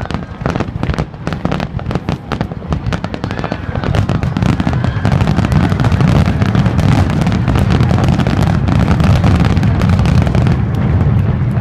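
Fireworks shells bursting in a rapid barrage: dense crackling and booming over a deep rumble, growing thicker and louder about four seconds in.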